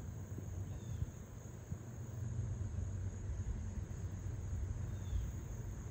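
Outdoor ambience: a steady low rumble of wind on the microphone, a steady high insect hum, and two brief faint chirps, one about a second in and one near the end.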